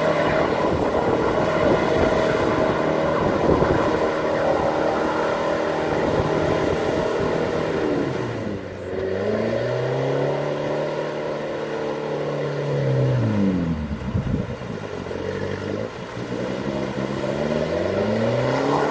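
Off-road 4x4's engine working hard under load, revving up and down repeatedly: pitch climbs about nine seconds in, drops away around fourteen seconds, then climbs again near the end.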